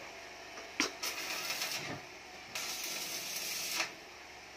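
Arc welding on a steel exhaust pipe joint: the crackling hiss of the welding arc in two runs of about a second each, the first starting about a second in, each beginning with a sharp strike, with short pauses between.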